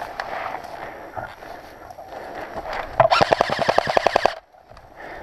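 An airsoft gun firing one full-auto burst of rapid, evenly spaced shots, about ten a second, lasting just over a second about three seconds in and cutting off suddenly. Before it, quieter rustling of movement.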